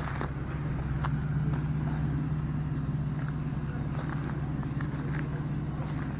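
Vehicle engine droning steadily while driving slowly along a gravel road, with a few faint ticks from the gravel under the tyres.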